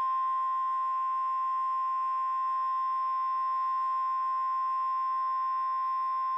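NOAA Weather Radio 1050 Hz warning alarm tone, one steady unbroken beep, heard through a receiver. It signals that a new warning is about to be broadcast.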